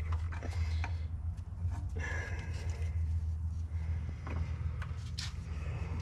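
Scattered small clicks and rustles of hands working a fuel-line disconnect tool into a quick-connect fuel line fitting and handling a rag, over a steady low hum.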